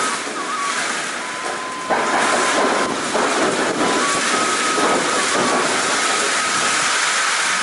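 Heavy downpour: rain pouring down onto a concrete rooftop, a steady loud hiss that steps up in loudness about two seconds in.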